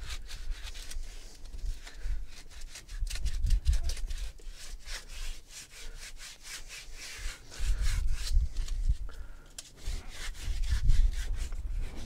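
Hand sanding of body filler on a steering wheel rim with sandpaper: quick back-and-forth scratching strokes, knocking down the high spots of a rough first coat.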